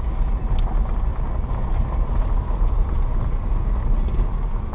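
Steady low rumble of engine and tyre noise heard inside the cabin of a moving vehicle.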